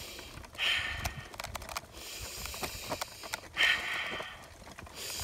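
A person sniffing air in sharply through the nose twice, about three seconds apart, taking deep breaths of fresh air, over light clicks and crunches from stroller wheels rolling on a forest trail.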